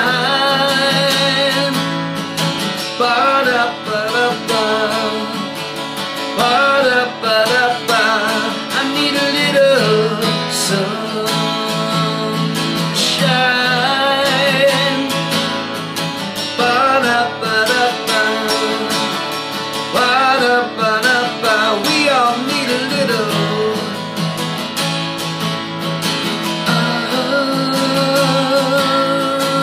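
A man singing full-voiced while strumming an acoustic guitar: a live solo acoustic song.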